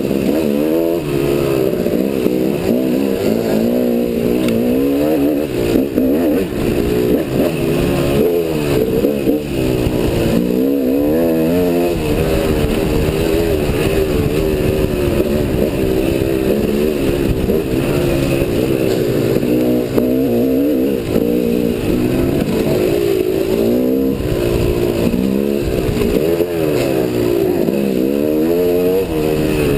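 KTM dirt bike engine being ridden on a trail, revving up and down over and over as the throttle opens and closes, its pitch rising and falling every second or two.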